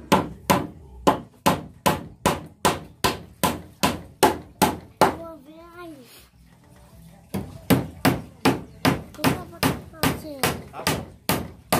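A hammer striking wooden roof framing overhead in a steady run of blows, about three a second. The blows stop for about two seconds a little past halfway, then resume.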